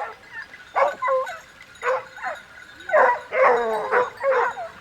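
A pack of hunting dogs yelping and baying in short, pitch-bending cries, several voices overlapping, busiest about three seconds in.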